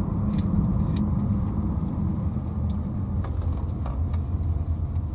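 Steady low rumble of a car driving, heard from inside the cabin: engine and road noise with a deep hum that eases slightly about three seconds in.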